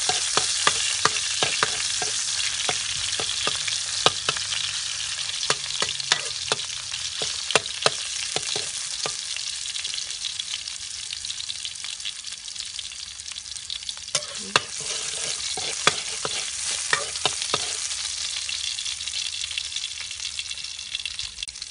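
Chopped garlic sizzling in hot oil in a wok while it fries until golden and crisp. A spatula scrapes and clicks against the pan often in the first half and again briefly a little past halfway.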